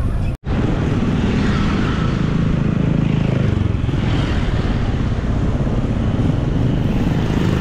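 Motorcycle being ridden, engine running under a heavy rumble of wind and road noise on the bike-mounted microphone, with a brief cut-out about half a second in.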